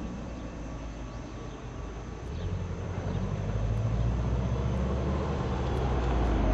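Exhaust note of a 2004 Subaru Forester XT's turbocharged flat-four through a 2006 STi OEM cat-back exhaust: a low rumble that eases off and then builds again about halfway through.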